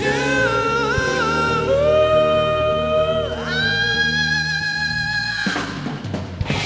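Live vocal group, a male lead with mic and a chorus, singing long held notes over a rock band with drums and bass. The music dips briefly near the end, with one sharp drum hit.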